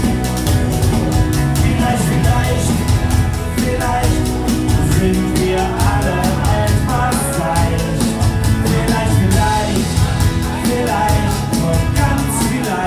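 Live band playing a folk-rock song with drum kit and a steady beat.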